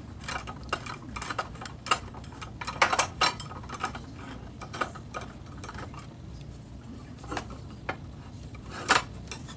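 Irregular light clicks and clinks of aluminium extrusion lengths and small metal connector brackets being handled and fitted together on a steel plate, with sharper knocks about two and three seconds in and another near the end.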